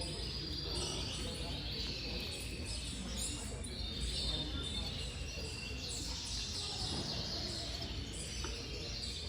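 Many caged Gloster canaries chirping and trilling at once in overlapping calls, over a steady low rumble of room noise.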